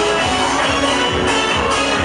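Disco polo dance music from a live band with keyboards, over a steady kick-drum beat a little over two beats a second and a bright, shaker-like high rhythm.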